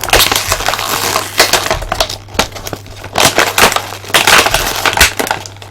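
Action figure packaging being handled and opened: cardboard and plastic crackling and crunching in loud, irregular bursts with sharp clicks.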